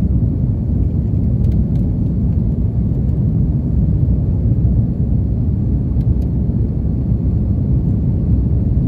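Steady low roar of an Airbus A330-300's cabin in flight: engine and airflow noise heard from inside the passenger cabin, with a few faint ticks.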